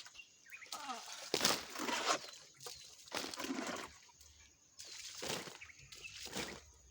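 Water splashing onto new stone-and-mortar masonry in three bursts, poured to wet the walls for curing, with short grunts of effort.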